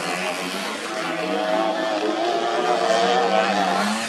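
Vespa scooter engines revving on the race track, their pitch wavering up and down and climbing a little near the end.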